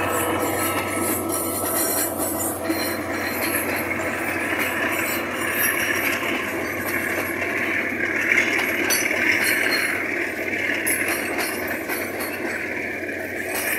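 Freight train boxcars rolling past close by: a steady rumble and clinking rattle of the wagons on the rails. A higher rushing sound joins about three seconds in and holds until near the end.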